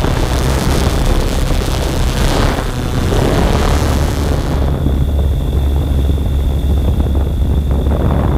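Camera drone's propellers and motors running in flight, heard from on board: a loud steady rumble with a thin high whine. About halfway through the hiss above the whine falls away, leaving the rumble and whine clearer.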